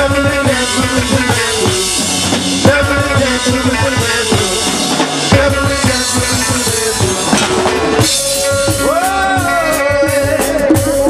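Live reggae band playing an instrumental passage: drum kit and hand drums keep a steady beat under electric guitar and keyboards, with a long held note that bends near the end.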